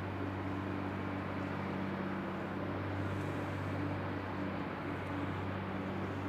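Steady low mechanical hum with a constant noisy wash over it, unchanging throughout.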